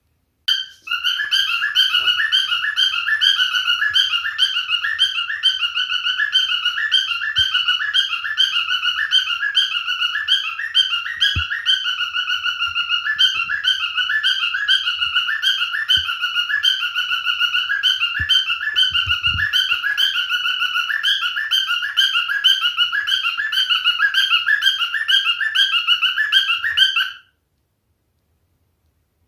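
Male cockatiel singing: a continuous warbling whistle in a quickly repeating pattern that starts abruptly and cuts off suddenly near the end.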